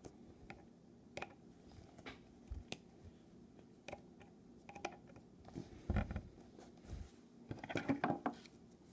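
Faint clicks, taps and scrapes of a stiff wire hook and hand tools being worked into a volleyball to pull out its leaking air valve. Light clicks come every second or so, with a dull knock about six seconds in and a quick run of clicks around eight seconds.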